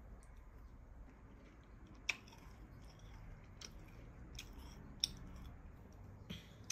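Faint, sharp crunches of a crisp baked oat-and-butter biscuit cup being bitten and chewed, five or so irregular crunches roughly a second apart.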